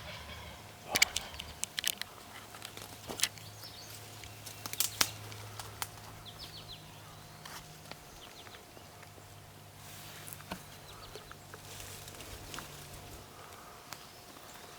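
A handful of sharp snaps and clicks, several close together in the first six seconds, with faint, high songbird chirps around the middle, over a quiet rural background.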